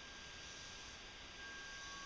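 Faint outdoor ambience: a steady hiss with a thin, steady high tone running through it, and a second, lower tone that comes back about two-thirds of the way in.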